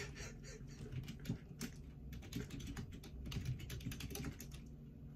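Typing on a computer keyboard: a run of irregular key clicks that thins out and stops about four and a half seconds in.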